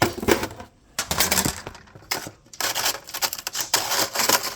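Ice cubes clattering and rattling against each other and their container in several bursts as the container is opened and the cubes are rummaged through.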